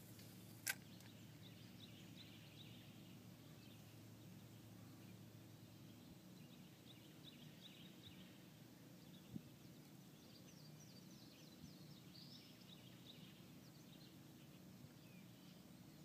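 Near silence outdoors with faint, scattered bird chirps and a steady low background hum. A single sharp click about a second in, and a fainter one about halfway through.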